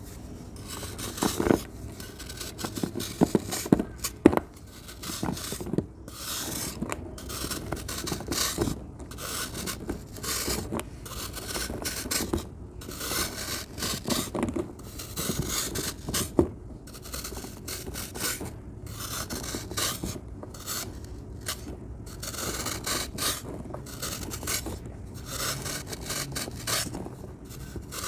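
Crunchy sand being crumbled and scraped: an irregular, continuous run of gritty rasping strokes, with a few sharper crunches in the first few seconds.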